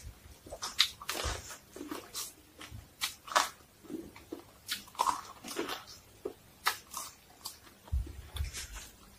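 Biting and chewing corn kernels off the cob: a run of irregular, sharp crunches and mouth noises.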